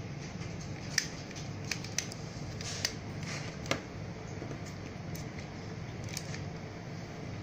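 Sharp plastic clicks and knocks from a clip-on LED ring light as a smartphone is fitted into its spring clip: about five clicks in the first four seconds, the loudest about a second in, then softer handling. A steady low hum runs underneath.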